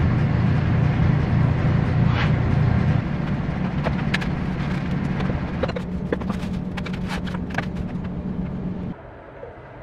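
Steady low rumble of a running vehicle, with scattered light clicks and knocks; it eases after about three seconds and drops away suddenly near the end.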